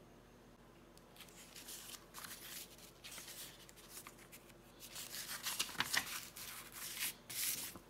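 Paper rustling as a printed instruction booklet and card are handled and pages turned: a run of dry, irregular rustles starting about a second in, busiest and loudest near the end.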